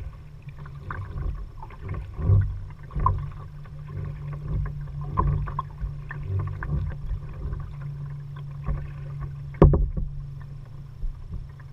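Kayak paddling: irregular paddle splashes and drips in the water over a steady low rumble, with one sharp knock, the loudest sound, nearly ten seconds in.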